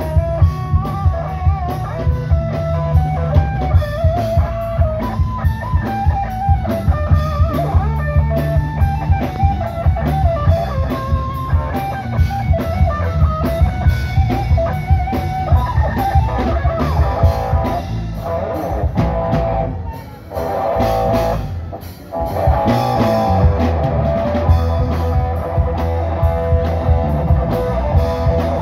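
Live rock band playing: electric guitar over a drum kit keeping a steady beat. The band drops out briefly twice about two-thirds of the way through, then comes back in.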